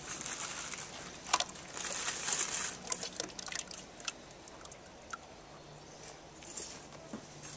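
Heavy whipping cream pouring from a carton into a cast-iron Dutch oven of chowder base, splashing loudest over the first three seconds and then quieter, with a few light clicks.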